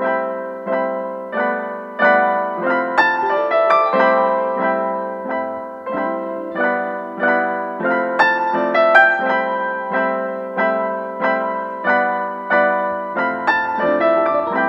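Background piano music, evenly paced single notes struck one after another, each fading before the next.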